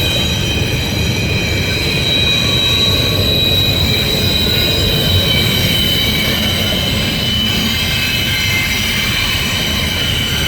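CSX intermodal freight train's cars rolling past: a steady, loud rumble with several high squealing tones from the wheels held over it throughout.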